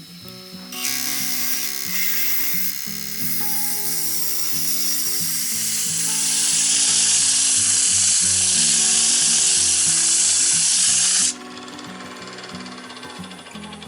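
Tool held against spinning wood on a Yamato Seisakusho Mokko Cool 600D-II woodturning lathe: a loud, steady hiss of cutting or abrasion starts about a second in, grows louder partway through, and stops abruptly near the end as the tool is lifted off. Background music plays throughout.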